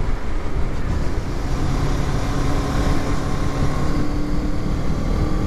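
Kawasaki Z650's parallel-twin engine running steadily at road speed, its note partly buried under heavy wind rush on a helmet-mounted camera.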